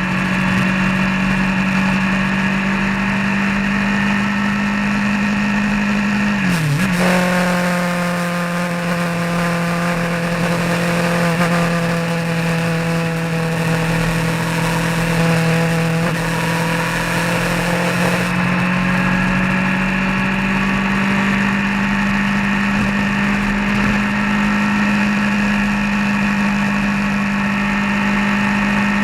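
A vehicle engine running steadily while driving on the road, with a steady note. About seven seconds in the engine pitch drops sharply and comes straight back, and road or wind hiss is louder for the next ten seconds or so.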